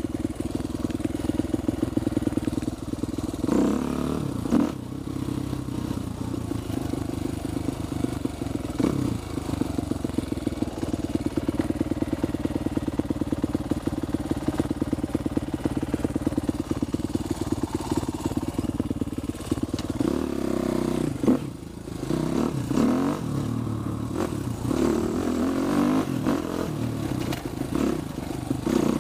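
Husqvarna TXC250 dirt bike's single-cylinder engine running at low, fairly steady revs on a rough downhill dirt trail, with a few knocks from the bike over bumps around four seconds in and again after twenty seconds.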